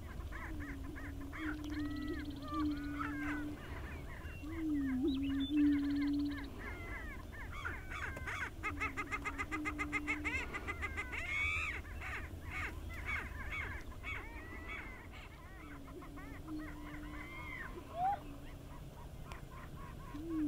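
Male greater prairie chickens booming on their lek: a low, hollow hooting moan repeated about every three to five seconds, under a busy chorus of higher cackling calls that is thickest around the middle.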